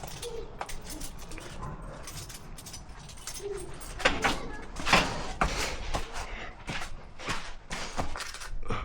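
Hand work with tools and materials: a few short squeaks, then from about four seconds in a quick run of sharp knocks and rattles.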